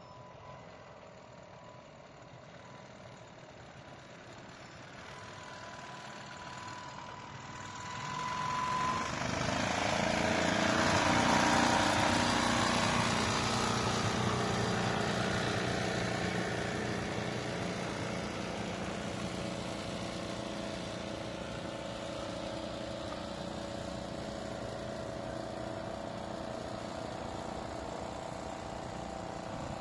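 6 HP Briggs & Stratton engine on a converted jon boat outboard running. It grows louder over the first ten seconds or so, peaks around twelve seconds in, then runs steadily.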